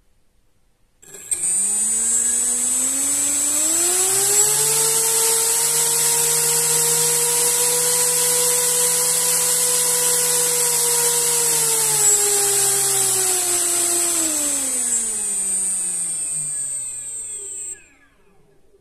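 Brushless drone motor spinning a 3D-printed tri-blade toroidal propeller on a thrust test stand. It starts about a second in and its hum climbs in pitch over about three seconds as the throttle comes up. It then holds steady under a strong high whine, drops in pitch from about twelve seconds in as the throttle is eased back, and cuts off shortly before the end.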